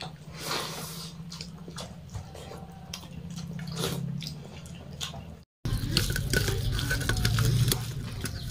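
Eating sounds: wet clicks and smacks of rice and curry being eaten with the hands and chewed, over a low steady hum. After a brief cut, louder wet squelching and clicking of fingers mashing cooked fish with green chilli in a steel plate for fish chokha.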